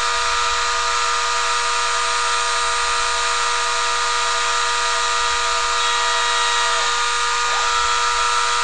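Small CNC milling machine taking a very light cut: its spindle motor runs steadily with a constant whine and hiss, and the feed axes move the tool along. The tone shifts briefly about seven seconds in, as the tool lifts and rapids to its next position.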